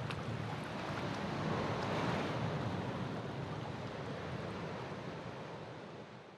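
Sea surf washing on the shore, a steady noisy wash that swells gently about two seconds in and fades away toward the end.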